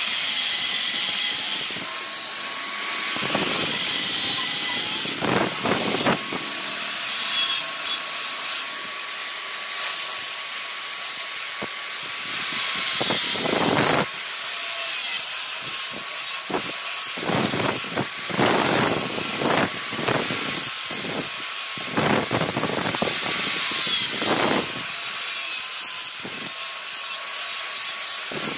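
Angle grinder with a cutting disc cutting through a flat steel bar: a steady high whine with a hiss, and harsh cutting noise that swells and fades many times as the disc bites into the steel.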